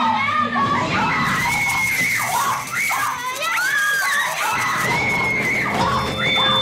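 High-pitched female screaming and shrieking, with long held shrieks and overlapping voices in places.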